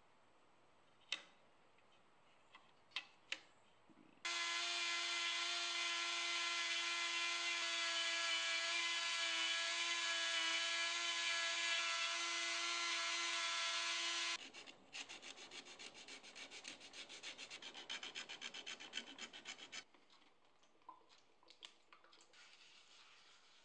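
A handheld high-speed rotary carving tool with a small abrasive bit runs with a steady whine against walnut for about ten seconds, then stops abruptly. About five seconds of fast, even, scratchy rubbing on wood follows, with a few light clicks before and after.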